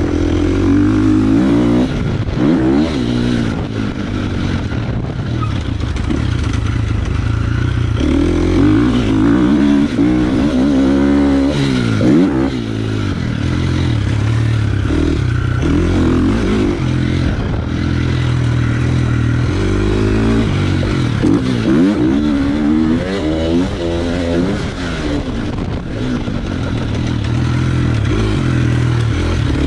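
Motocross bike engine revving hard and backing off over and over, its pitch climbing and dropping with throttle and gear changes.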